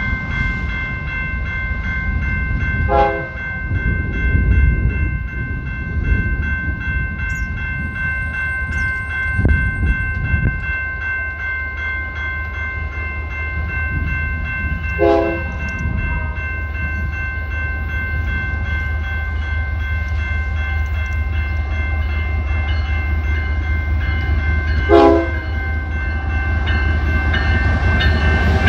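Railroad grade-crossing bell ringing steadily as a Canadian Pacific freight train's diesel locomotive approaches. The locomotive's low engine rumble builds from about ten seconds in and grows louder toward the end, with three brief sharp sounds spread through it.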